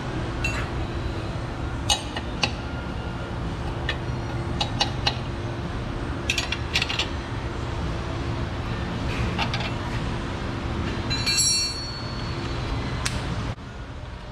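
Metal tools clinking and being handled, with scattered sharp clinks and a short ringing clang about eleven seconds in, over a steady hum that cuts off suddenly near the end.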